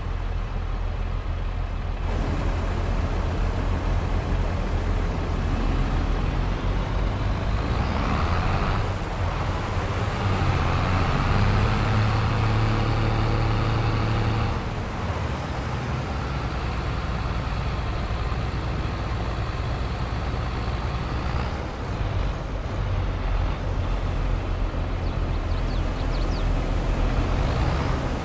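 Farm tractor's diesel engine running steadily while driving, with the engine note growing louder about eight seconds in and easing back about fifteen seconds in.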